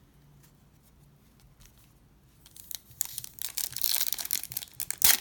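A baseball card pack's wrapper being torn open and crinkled, starting about halfway in and growing louder, with a sharp crackle near the end.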